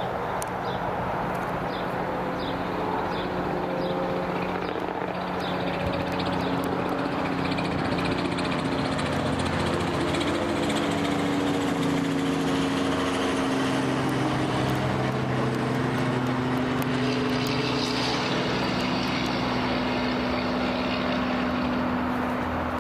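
Robinson R44 helicopter passing overhead: the steady drone of its rotor and Lycoming six-cylinder piston engine, a little louder as it passes overhead near the middle, its pitch dropping as it moves away.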